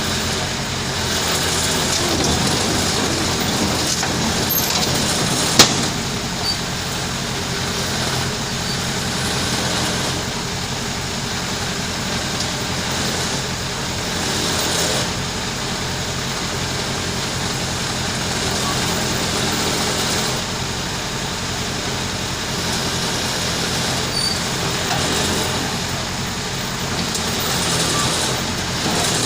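Heavy diesel engine running steadily, with one sharp clank about five and a half seconds in.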